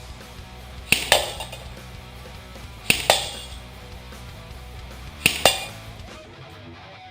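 Three single shots from a G&G Firehawk electric airsoft M4, about two seconds apart. Each is a sharp crack from the muzzle, made louder by its amplifying flash hider, followed about a fifth of a second later by the BB striking the target with a metallic clink.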